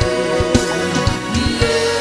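Gospel worship music: held instrumental chords over scattered drum hits.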